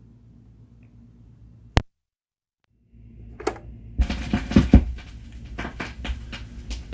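A faint low hum, then a sharp click. After a moment of silence, the surface noise of a vinyl 45 comes in about three seconds in: a few low thumps, then a steady run of crackles and pops from the stylus riding the lead-in groove before the music starts.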